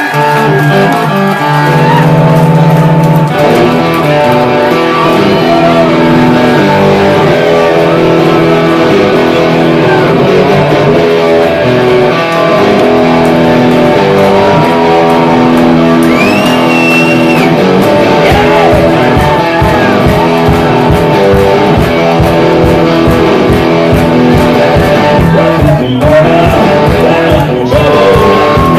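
Electric guitar played live through an amplifier, loud chords ringing on. A steady low beat comes in about two-thirds of the way through.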